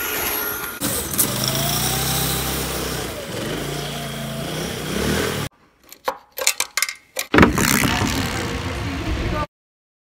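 A motor running with its pitch rising and falling, cut off suddenly about five seconds in; then a quick run of sharp clicks and knocks, and a couple of seconds of noisy running sound that stops abruptly.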